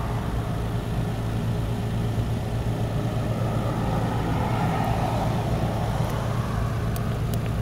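Steady low mechanical hum of a running motor over even background noise.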